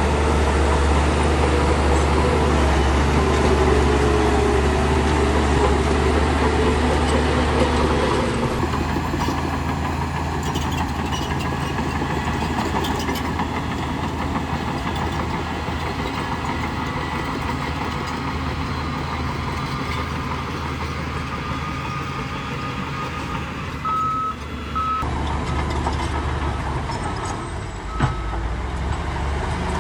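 Heavy bulldozer diesel engine running steadily under load with a deep hum. Near the end a reversing alarm beeps in short repeated tones.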